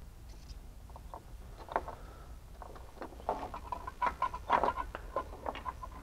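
Hands working under a car's hood: scattered clicks and rustles of plastic parts and wiring as an HID ballast is set onto double-sided foam tape and pressed into place, with a run of short squeaks from about four seconds in.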